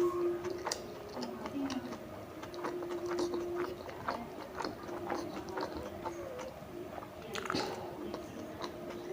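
Close-miked chewing and biting of tandoori momos: wet mouth sounds with many small, irregular smacks and clicks.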